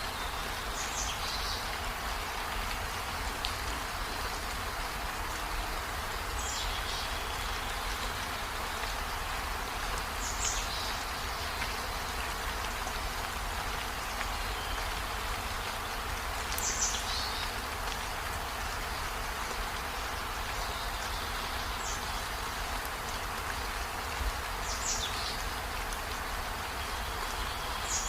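Steady rain-like hiss, with a short high chirp that falls in pitch every few seconds.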